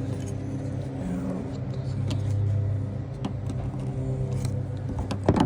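A steady low mechanical hum, with a few sharp clicks near the end.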